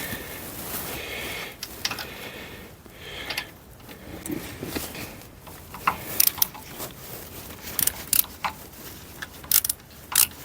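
Scattered metallic clicks and clinks of parts and tools being handled while the rear derailleur and wheel of an e-bike are refitted, coming more often in the second half.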